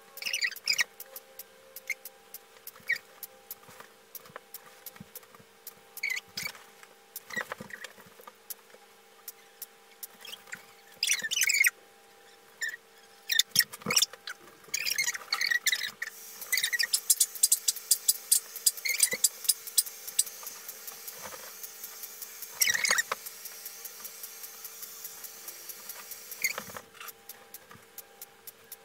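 DSLR camera shutter clicking again and again, with scattered rustles and handling noises; in the second half the shutter fires in a quick run of clicks for several seconds. A faint steady hum sits underneath.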